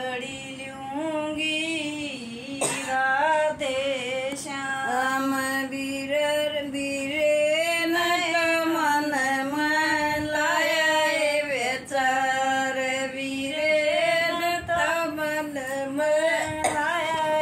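An elderly woman singing a folk geet unaccompanied, one voice holding long notes with wavering ornaments and short pauses between phrases.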